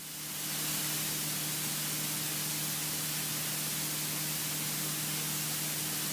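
Steady hiss with a faint low hum underneath: cabin noise of a single-engine light aircraft in cruise, fading up over the first second and then holding level.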